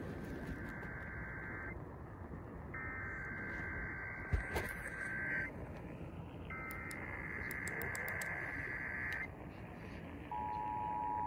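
Emergency Alert System SAME header tones: three warbling bursts of data tones, each about three seconds long with a second's gap, the first already under way. About ten seconds in, the steady two-tone EAS attention signal begins. Background hiss of radio reception runs underneath.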